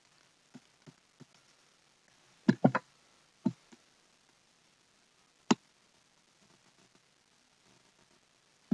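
Computer mouse clicking: a few light clicks in the first second and a half, a quick run of three loud clicks about two and a half seconds in, then single clicks about a second later, near the middle and at the end.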